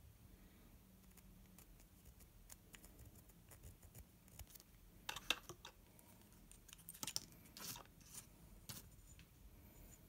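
Faint handling sounds: scattered small clicks and short scrapes as a plastic template is worked off a metal lens-mount adapter ring, loudest about five seconds in and again around seven seconds.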